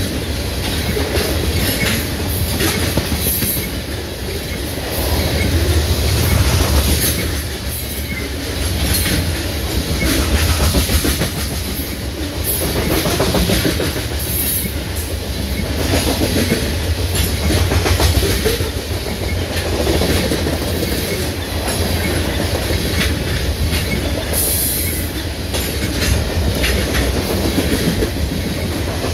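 Covered hopper cars of a freight train rolling past close by: a steady rumble of steel wheels on rail with clicks from the wheels, swelling and easing as each car goes by.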